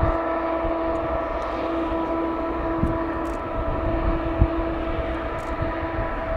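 High-pressure gas venting from a rocket engine test stand: a steady rushing with a held droning tone and its overtones running through it.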